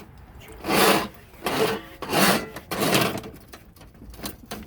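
Power drain snake's spinning cable and root cutter rasping and scraping inside a main sewer drain clogged by root intrusion, in four irregular grinding swells.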